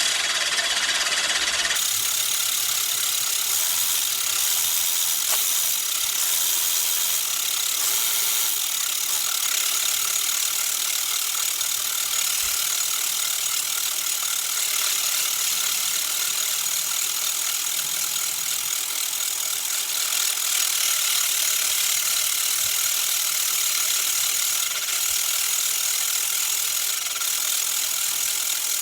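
Cylinder mower's 10-blade reel spinning backwards against the bottom blade coated in lapping paste: a steady, loud rasping grind as the blades are back-lapped sharp.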